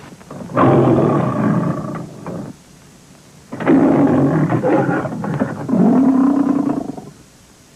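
Monster roar made from lion roars: one roar of about two seconds starting about half a second in, then a longer roar of about three seconds starting about three and a half seconds in.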